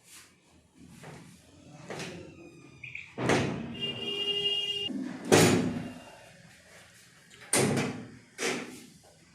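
Several sharp thuds from a chiropractic adjustment, the hands thrusting on the patient's body against the treatment table, the loudest about five seconds in. A steady squeak lasting about a second comes just before it.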